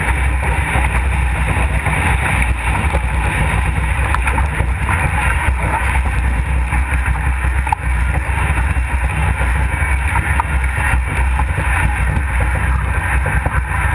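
Heavy wind buffeting on a boat-mounted camera's microphone aboard a MACH2 Moth foiling dinghy sailing fast downwind, with a steady hiss of rushing water and spray underneath.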